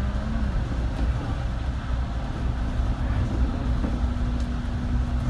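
Bus engine and road noise heard from inside the bus: a steady low rumble, with a steady hum joining in about halfway through.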